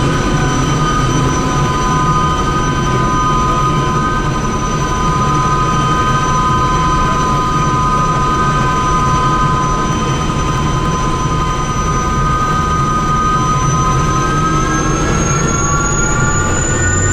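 Aérospatiale Gazelle helicopter's Turbomeca Astazou turbine engine and rotors running steadily, a loud rushing noise with a high turbine whine that rises slightly in pitch near the end.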